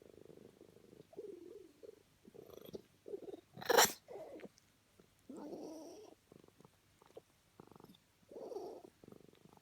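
Snoring in short, uneven rasping breaths, about one every second or so. A sudden loud, sharp noise comes a little under four seconds in.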